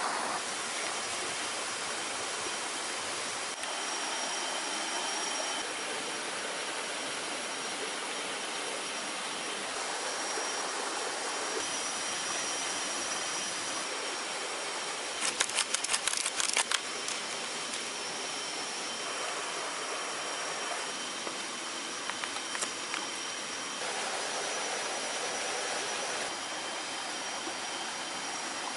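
Steady outdoor forest ambience: the even rush of a stream, with faint high insect tones held underneath. About halfway through comes a quick run of sharp clicks, with a couple more later on, from sticks being handled and worked.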